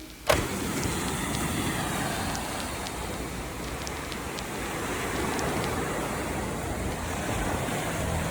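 A car being driven: steady road and tyre noise with the engine underneath, starting suddenly and holding fairly even throughout.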